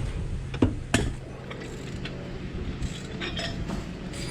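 Ratchet wrench on a seized golf cart lug nut: two sharp cracks about a third of a second apart as the nut breaks loose, sharp enough to sound like the ratchet breaking, then a run of lighter ratchet clicks.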